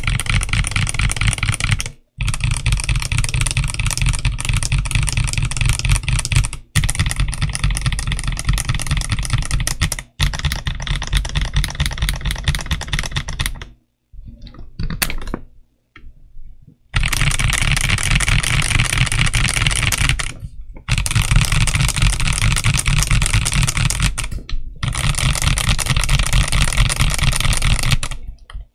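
Fast typing on a Machenike K500F mechanical keyboard with G.Rule crystal translucent polycarbonate OEM-profile keycaps: a dense, steady clatter of keystrokes. It is broken by several brief cuts to silence, with a sparser, quieter patch of keystrokes around the middle.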